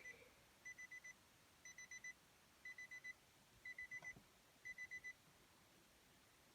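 Faint electronic warning chime of a 2017 Nissan Armada after a failed start: quick runs of four high beeps, one run about every second, stopping about five seconds in.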